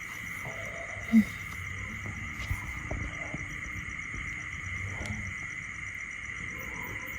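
Steady high-pitched insect drone, with one brief, loud, low squeak about a second in and a few faint taps.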